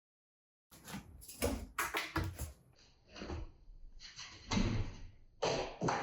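Household handling noises: a string of short knocks, clicks and clatters with rustling between them, starting about a second in.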